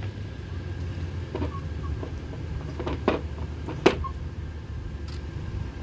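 Two sharp knocks, about three and four seconds in, as flagstaffs are set into their stands while the colors are posted. A steady low hum runs underneath.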